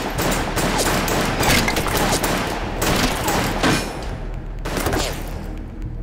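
Rapid, overlapping pistol gunfire in a film shootout, shot after shot for about four seconds, with one more short volley about five seconds in before it thins out.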